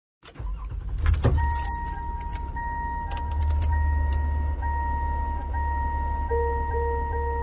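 Recorded car sounds: keys jangling and clicking, a low engine rumble underneath, and a steady electronic warning chime from the car. A second, pulsing chime starts near the end.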